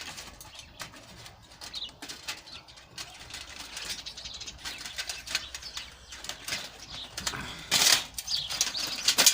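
Toaster heating element being pried apart by hand: irregular rustling, scraping and clicking of thin sheet metal and the fireproof panel around the nichrome wire, with a louder scrape about eight seconds in and again near the end.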